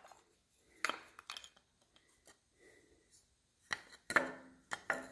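A few light metallic clicks and clinks as the distributor cap on a Model A Ford engine is worked loose and lifted off: a pair about a second in, then several more together near the end.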